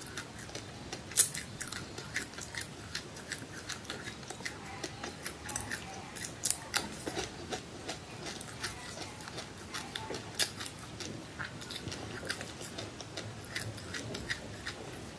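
Close-up chewing of small crunchy seeds: a run of sharp, irregular crackling clicks, a few a second, as the seeds crack between the teeth.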